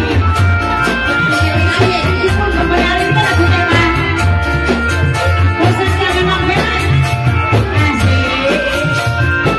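Live Indramayu reog folk music: a woman singing through a microphone over an amplified band with a steady low beat.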